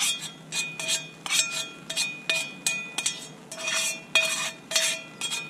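A metal utensil clanking repeatedly against a metal canteen cup while food is stirred in it, about two to three sharp clinks a second, each leaving the cup briefly ringing.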